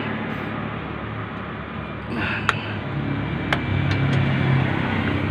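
A few sharp metallic clicks from a ratchet wrench on the clutch adjuster inside a Freightliner's transmission bell housing, over a steady low background hum.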